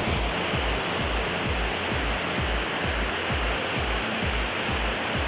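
Rushing mountain water, a steady dense roar of falling and flowing water, under background music with a deep, steady beat of about two thumps a second.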